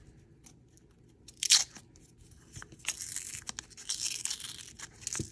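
Paper wrapper of a coin roll being torn open by hand: one sharp rip about a second and a half in, then a couple of seconds of crackling tearing as the paper is peeled back from the end of the roll.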